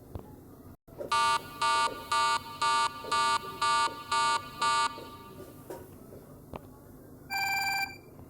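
Electronic alarm tone: eight short, evenly spaced beeps at about two a second, followed a couple of seconds later by one longer buzzing tone.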